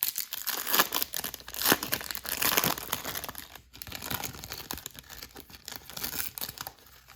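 Foil trading-card pack wrapper being torn open and crinkled by hand, heaviest in the first few seconds and lighter toward the end.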